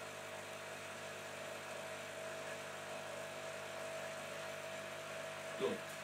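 Steady electrical machine hum with several fixed tones, running evenly. About five and a half seconds in, a brief pitched squeak rises over it.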